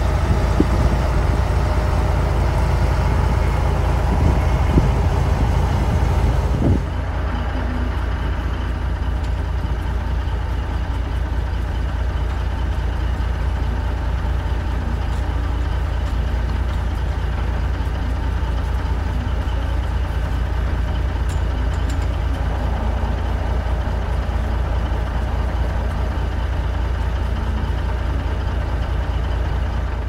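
Diesel farm engines running steadily as a tractor and grain cart unload wheat into a semi grain trailer. The sound drops a little and changes about seven seconds in, then settles into a steady run.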